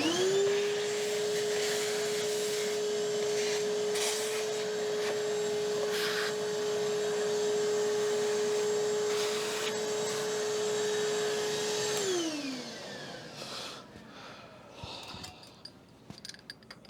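Milling machine spindle motor switched on and spinning up to a steady whine. It runs at an even speed for about twelve seconds with a few light clicks from the work, then is switched off and winds down with a falling pitch. Faint handling clicks follow.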